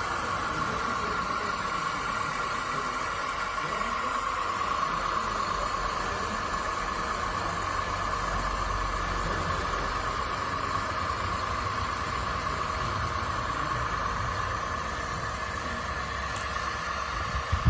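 Radio-controlled scale construction machinery running: a steady mechanical whine over a low engine-like hum, with a couple of sharp knocks near the end.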